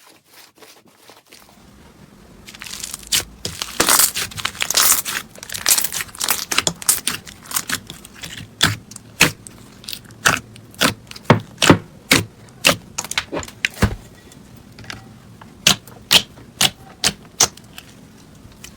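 Slime being pressed and squeezed by hand: a patch of dense crackling from about two and a half seconds in, then a steady string of sharp clicks and pops, about two a second, stopping shortly before the end.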